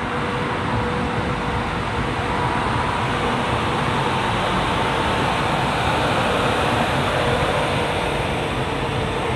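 Passenger train coach rolling, heard at its open door: a steady rumble of wheels on rails with rushing air.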